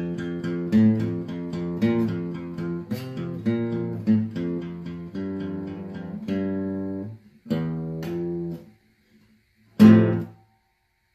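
Guitar music: a rhythmic strummed riff for several seconds, then one held chord, a short gap, and a final loud chord near the end that dies away quickly.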